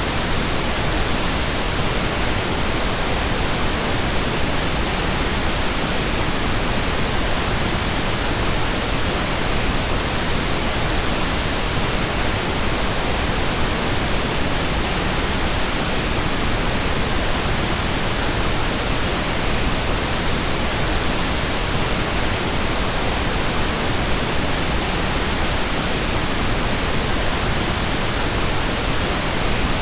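Steady, continuous pink noise: an even hiss spread across all frequencies, unchanging throughout.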